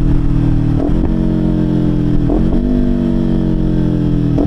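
Kawasaki Ninja 500's parallel-twin engine through a Leo Vince LV Corsa exhaust, downshifting while slowing. Three quick throttle blips: after each one the engine turns a step higher, then its pitch slowly sinks.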